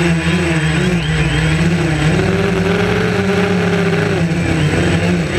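DJI Phantom quadcopter's electric motors and propellers whirring loudly, heard close-up from the camera on the drone itself, the pitch wavering up and down as the motor speeds change.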